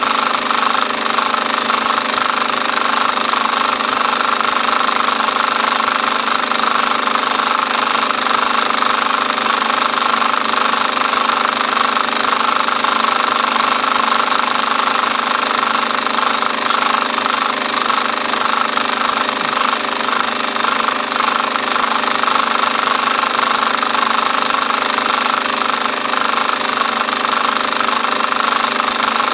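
A film projector running: a steady, loud mechanical rattle and hum with no change throughout.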